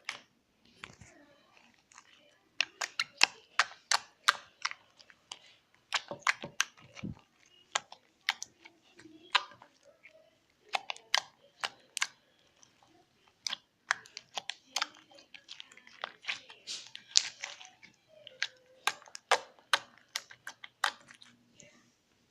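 Slime being squeezed and worked by hand, giving off irregular sharp clicks and pops, often several in quick succession.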